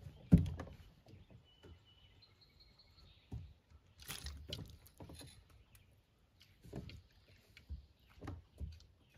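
Irregular knocks and bumps of handling in a small boat while fishing, with one sharp loud knock just after the start. A thin, high bird call sounds briefly around two seconds in.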